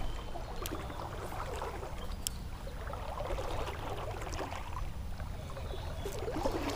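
Creek water sloshing and lapping around a wading angler's legs, over a steady low rumble, with a few faint ticks.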